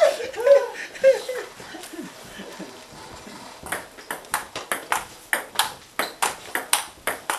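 Table tennis rally: a celluloid-type ping-pong ball hit back and forth, its bounces on the table and strikes off the paddles making a quick, regular run of sharp clicks, several a second, starting about halfway through.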